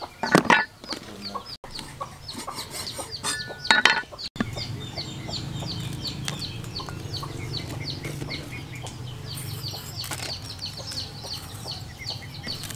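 A steel cleaver knocks twice on a wooden chopping block, about half a second in and again near four seconds. After that, birds chirp rapidly and steadily, several short high calls a second, over a low hum.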